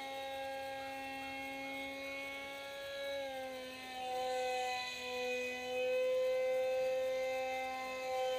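Electric motor and propeller of a small RC foam model jet in flight: a steady whine with many overtones. It dips slightly in pitch about three seconds in, then holds, swelling and fading a little.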